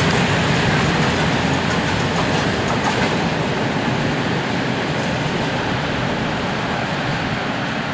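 Empty freight wagons rolling past at speed: a steady rumble of wheels on rail with light clicking from the rail joints, slowly fading.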